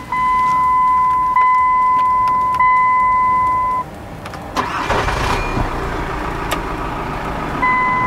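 A steady high beep tone, briefly broken about every second and a half, sounds for the first four seconds and stops; about a second later a Dodge Journey's engine is cranked and catches, settling into a low idle. The beep tone sounds again briefly near the end.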